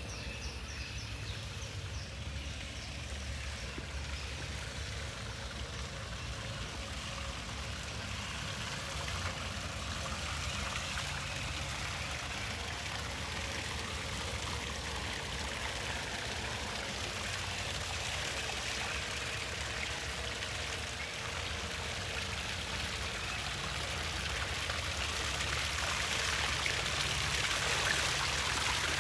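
Running, splashing water with a steady rush that grows louder toward the end.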